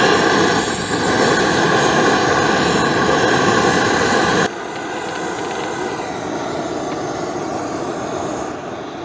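Screw-on propane canister burner hissing steadily at full flame under a kettle. It settles to a quieter hiss about halfway through and dies away at the end as its valve is closed.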